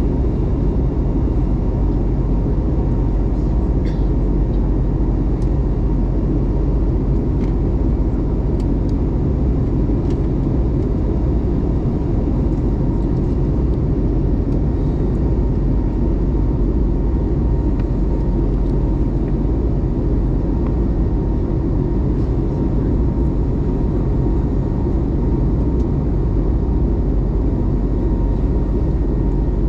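Steady engine and airflow roar inside the cabin of an Airbus A321neo under thrust, with a faint steady hum over it.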